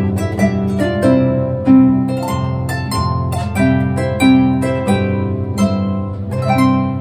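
Background harp music: a flowing stream of plucked notes, several a second, each ringing on and dying away.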